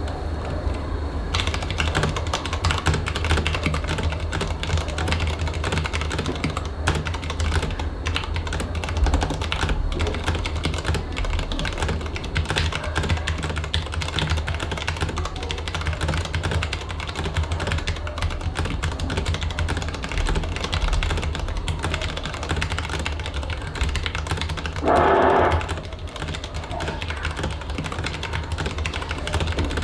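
Continuous typing on a mechanical keyboard: a dense stream of key clicks and bottom-outs that starts about a second in. Late on, a louder pitched sound lasting about a second cuts across the typing.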